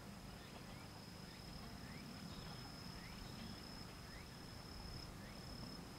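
Insects trilling in the grass: a thin, steady, high buzz that breaks up near the end, with short rising chirps about once a second, over a faint low rumble.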